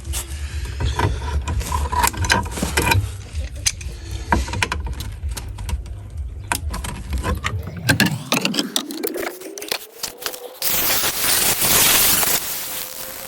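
A run of clicks and knocks as metal and tools are handled. About eight seconds in, an electric angle grinder spins up with a rising whine, then from about ten seconds bites into the steel of the old sill with a loud grinding hiss.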